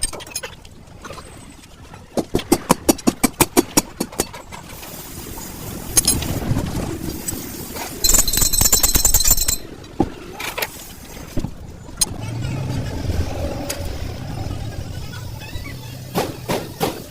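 Rapid metal-on-metal hammer blows, about a dozen in two seconds, then single knocks. About eight seconds in comes a loud, steady, high-whining mechanical burst lasting a second and a half.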